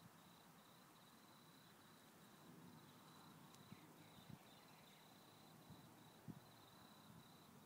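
Near silence: a faint, steady high-pitched cricket trill, with a few soft low thumps about four and six seconds in.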